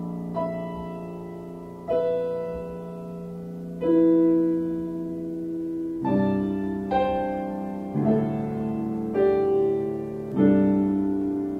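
Solo piano music: slow, sparse notes ringing out over a held low note, then chords struck about once a second from about six seconds in.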